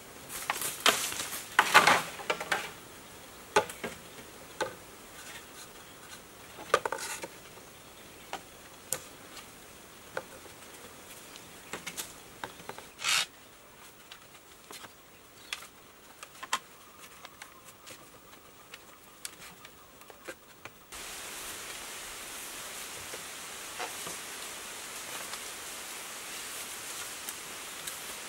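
Bamboo poles knocking and clattering as they are handled and fitted into a bamboo frame: scattered sharp knocks, the loudest in the first two seconds, and a longer scrape about halfway. About two-thirds through, a steady hiss comes in under a few faint clicks.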